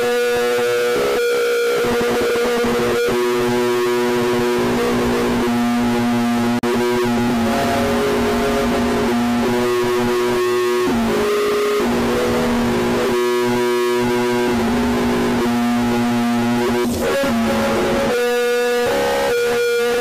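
Harsh, distorted electronic emergency alarm of the kind labelled as Kuwait's 1961 alert: several steady low tones held together at once under clashing buzzy overtones that come and go about once a second, at a constant loud level.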